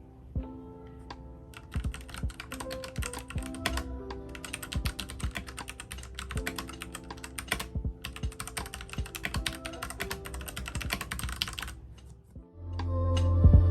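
Fast typing on a Royal Kludge RK-71 mechanical keyboard with red linear switches: rapid runs of key clacks with a few short pauses, stopping shortly before the end, over soft background music.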